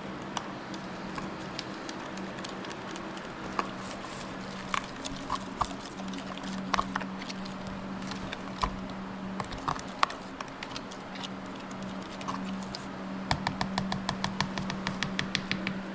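A fork clinking against a bowl while stirring a buttermilk and hot sauce marinade: scattered light clicks, then a fast run of about five clicks a second near the end. A steady low hum runs underneath.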